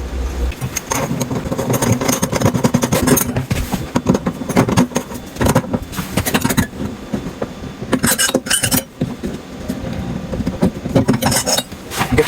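Kitchen sink drain parts being fitted and tightened under the sink: a busy run of quick clicks, rattles and scraping knocks.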